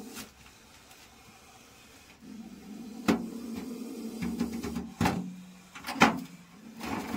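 An old metal trunk being shifted and dragged on a brick shelf, giving several sharp knocks about three, five and six seconds in.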